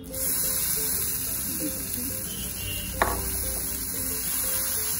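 Batter sizzling in a hot non-stick pan greased with ghee, starting suddenly as the batter hits the pan and hissing steadily. A single sharp clink of the steel spoon against the pan about three seconds in.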